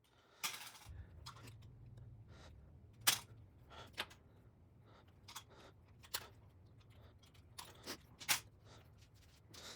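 Wire strippers snipping and pulling insulation off the conductors of a power cord: a string of sharp clicks and snips at uneven intervals, two of them louder, over a faint low hum.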